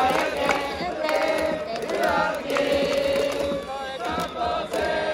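Baseball fans in the stands chanting a cheer song in unison, with sharp beats keeping the rhythm.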